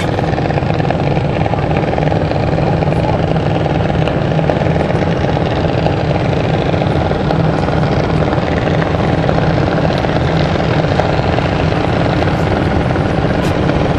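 Junior dragsters' small single-cylinder engines idling together at the starting line, a steady, even chugging with no revving.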